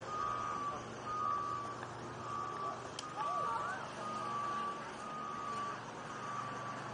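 Electronic beeping: a steady half-second beep repeating about once a second, over outdoor background noise.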